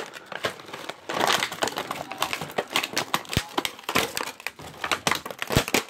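Plastic toy packaging crinkling and crackling as it is handled, a dense run of irregular crackles and clicks.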